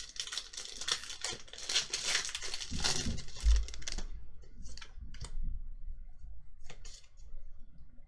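Pokémon trading cards and booster-pack packaging being handled: continuous crinkling and rustling for about four seconds, with a dull thump around three and a half seconds in, then scattered light clicks and taps.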